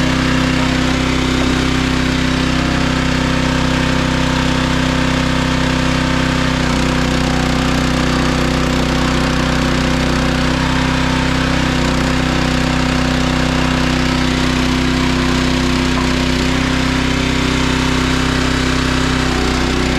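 Small gasoline engine of a log splitter running steadily at a constant speed.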